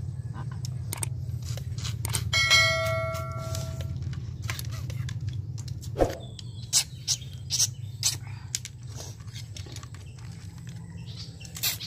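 Eating sounds: metal spoons and snail shells clicking and clinking on plates and bowls, with a metal bowl ringing once for about a second and a half a couple of seconds in. A steady low rumble runs underneath.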